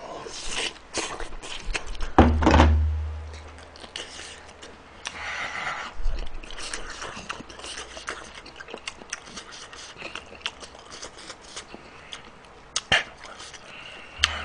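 Eating close to the microphone: chopsticks scraping food from a metal bowl and mouthfuls being chewed, with scattered small clicks and a low thud about two seconds in.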